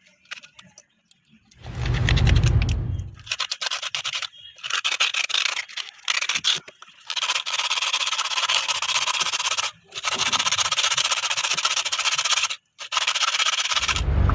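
Hand-sanding the rim of a half coconut shell with sandpaper: a dry, scratchy rasp in long stretches with brief breaks. A dull low rumble comes about two seconds in, before the sanding starts.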